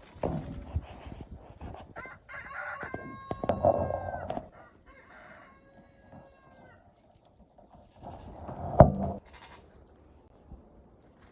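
A rooster crows once, a long call of about two seconds with a falling end, among rustling and shuffling noises. A single sharp knock about three-quarters of the way through is the loudest sound.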